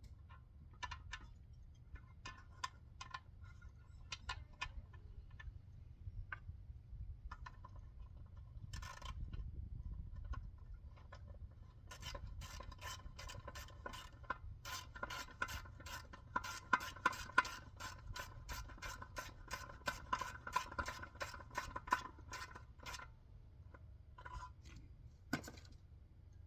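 Hand-tool work: scattered light clicks and knocks, then a quick regular run of scraping or rubbing strokes, about four a second, for roughly ten seconds before stopping.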